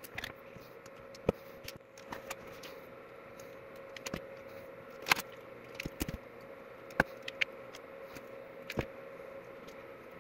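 Scattered small clicks and taps of wire, test-lead plugs, resistors and tools being handled on a workbench, over a faint steady hum.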